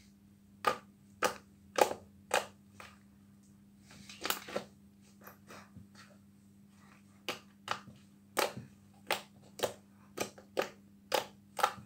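Blue butter slime being squeezed and kneaded by hand, giving a string of short, sharp squishy pops and clicks, irregular, about one or two a second.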